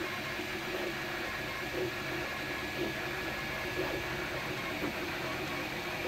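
MakerBot Replicator 2 desktop 3D printer running a print: a steady whir with short, uneven chirps as its motors move the print head.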